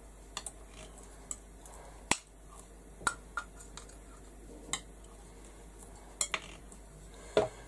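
Metal palette knife clinking and scraping against a small paint jar as thick metallic paint is scooped out: scattered sharp clicks, the loudest about two seconds in.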